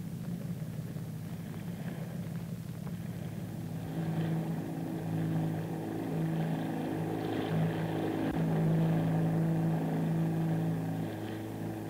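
Elco PT boat engines running under way: a steady low drone that grows louder about four seconds in.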